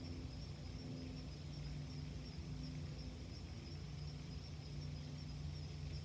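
Soft ambient background music of sustained low held tones, with a steady high-pitched chirring of insects.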